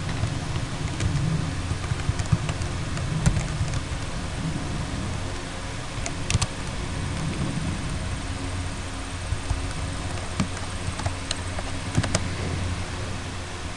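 Computer keyboard typing: scattered, irregular key clicks over a steady background rumble and hum.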